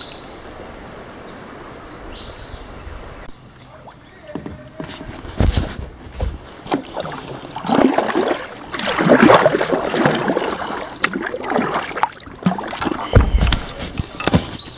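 Kayak paddling close up: irregular splashes and sloshing of water from paddle strokes against the hull, with a couple of dull knocks. A few short high chirps come about a second in.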